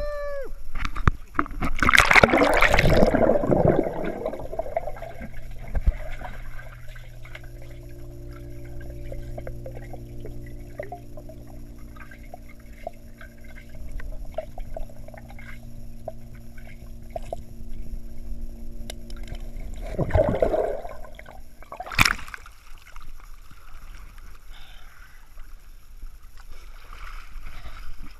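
Hot tub water splashing and sloshing, with a loud churn about two seconds in and again near the end. In between runs a steady low hum made of several even tones.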